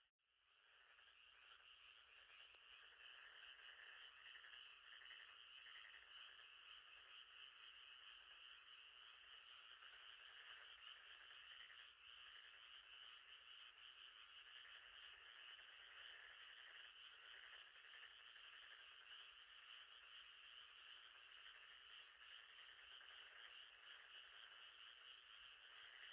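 Faint, steady night chorus of many frogs calling together, a dense pulsing chorus with no break. It drops out for an instant at the start and fades back in.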